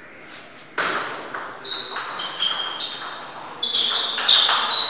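Table tennis play in a sports hall: a sharp knock about a second in, then a run of short, high squeaks from players' shoes on the court floor.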